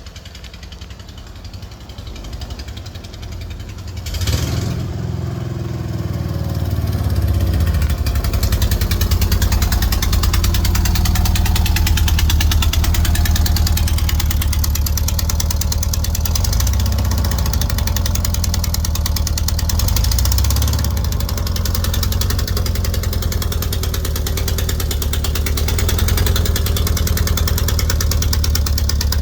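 A van's engine running with a fast, even clatter. It grows louder a few seconds in, then holds steady.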